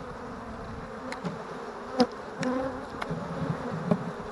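Honey bees buzzing around an open hive, single bees humming close by now and then. A few sharp clicks and knocks come from the wooden hive frames being handled, the loudest about two seconds in.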